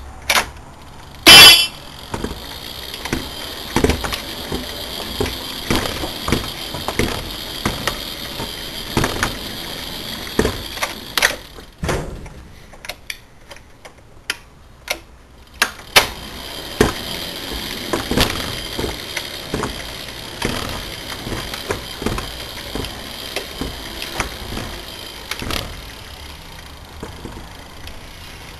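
A battery-electric model locomotive sounds a short horn toot, then runs along a wooden track with a steady high electric-motor whine and regular clicks from its wheels on the timber rails. It stops for a few seconds near the middle, then runs back with the same whine and clicks.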